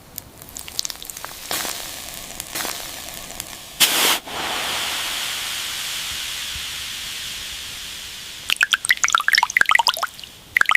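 Liquid sounds: a few light clicks, then a short burst like a spray about four seconds in. A steady hiss follows and fades slowly, and near the end comes a quick run of dripping, bubbling plinks.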